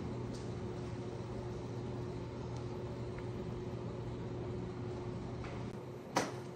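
Steady mechanical hum of a kitchen appliance fan, with a few faint utensil ticks. About six seconds in there is one sharp click, after which the low rumble eases slightly.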